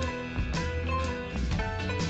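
Instrumental background music with held notes over a bass line.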